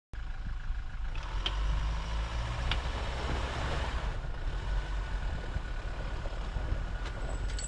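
A vehicle running: a steady low engine rumble with a faint tick or two.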